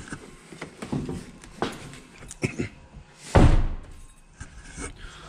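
A truck's cab door slammed shut about three seconds in: one loud, sudden thunk with a short ringing tail. Before it come a few lighter knocks and rustles as someone climbs down from the cab.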